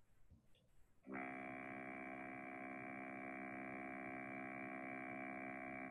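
A steady electronic test tone, buzzy with many overtones. It starts about a second in, holds one unchanging pitch for about five seconds and cuts off abruptly.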